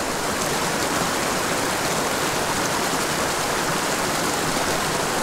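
Small mountain creek running steadily over rocks, an even rushing wash of water from a riffle spilling into a pool.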